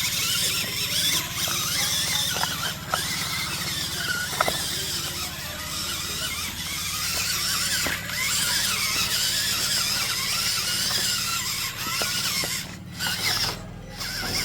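Small electric drive motors and plastic gearing of a remote-control toy tractor running, with a steady low hum under a high, wavering squeal.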